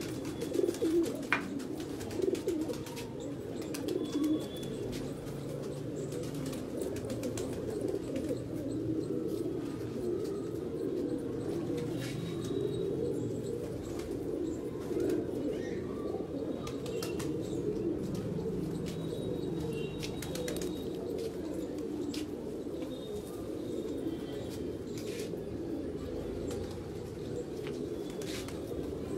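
A flock of white domestic pigeons cooing continuously, many coos overlapping into a steady low murmur, with a few short clicks and chirps over it.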